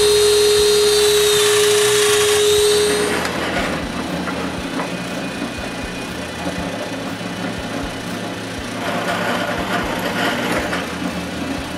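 A power tool runs with a steady high whine while cutting wood, cutting off about three seconds in. It is followed by a rougher, lower running sound of further shop work with scattered knocks, which grows louder again near the end.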